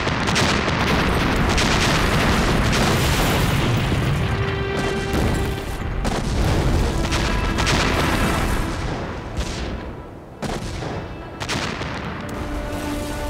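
A loud explosion goes off at the start, followed by several seconds of dense rumbling and crashing noise, with a few more sudden bangs near the end. Dramatic film score music plays underneath.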